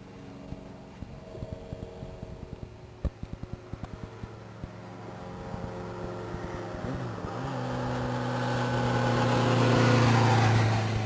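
A road vehicle's engine hums steadily, with a few light clicks. Over the last few seconds a vehicle comes closer along the road and grows loud, its engine tone and tyre noise swelling to a peak near the end.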